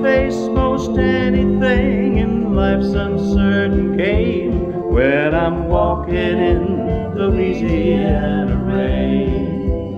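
Country song playing on a record: full band with a lead line that slides up into held, wavering notes over a steady backing.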